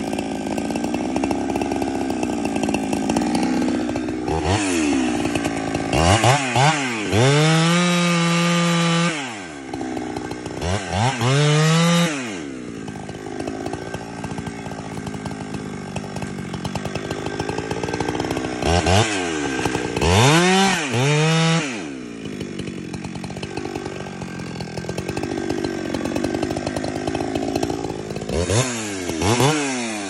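Husqvarna 372XP two-stroke chainsaw cutting into a tree trunk. The engine runs under load with a wavering pitch, and four times it revs up freely to a high, steady pitch and drops back: about 4 to 9 seconds in, again around 11 to 12 seconds, around 19 to 21 seconds, and briefly near the end.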